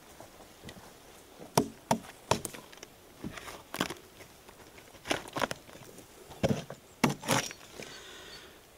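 Bark being pried and broken off a spruce trunk: a series of about ten irregular sharp cracks and snaps, some coming in quick pairs.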